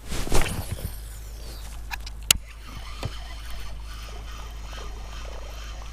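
Handling noises aboard a fishing kayak: a brief rush about a quarter second in, then a sharp click about two seconds later and a softer knock after it, over a steady low rumble.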